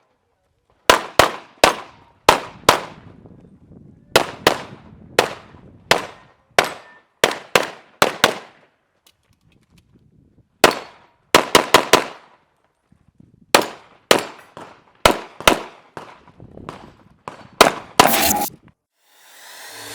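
Handgun shots fired in rapid pairs and quick strings, about thirty in all, with a couple of pauses of a second or more between strings, as an IPSC competitor shoots a course of fire.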